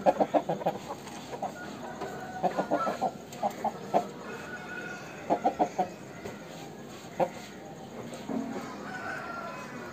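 Aseel rooster clucking in short clusters of quick repeated notes, a burst every second or two, with a single note near the end.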